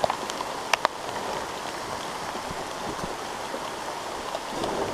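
Steady hiss of rain falling on the forest foliage, with a few sharp ticks in the first second.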